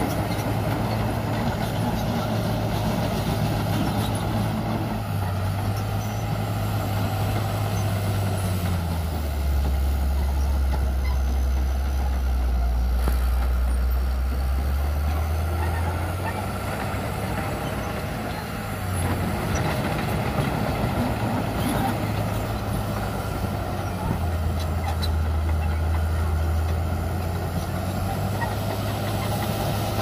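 Crawler bulldozer's diesel engine running as it pushes soil with its blade. The engine note drops lower for several seconds around the middle and again near the end, then climbs back up.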